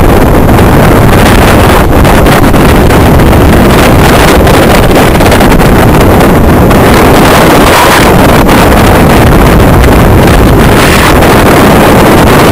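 Strong wind buffeting the microphone: a loud, steady low rumble that never lets up.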